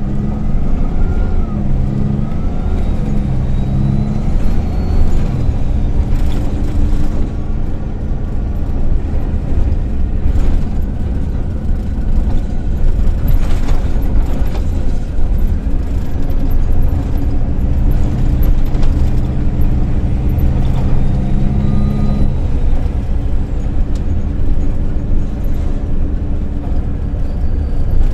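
Cabin sound of a MAN Lion's City A20 NL low-floor city bus under way: its rear-mounted diesel engine and road rumble run steadily. The engine note rises and falls over the first few seconds, holds a steady hum later, and drops away about twenty-two seconds in, with a brief rattle about halfway through.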